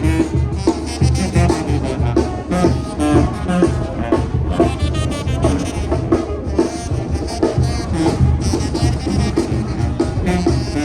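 Band music with brass instruments and drums playing, with a steady beat.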